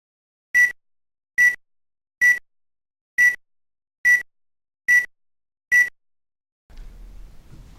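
Seven short electronic beeps, all at the same pitch, evenly spaced a little under a second apart, followed by faint room noise from near the end.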